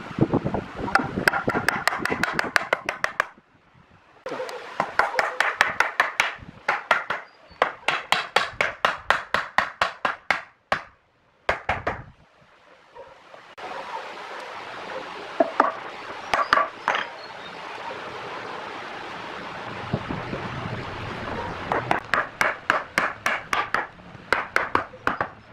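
Wooden mallet tapping a wooden rail down into a mortise cut in a log stump, in quick runs of light blows about five a second, broken by short pauses.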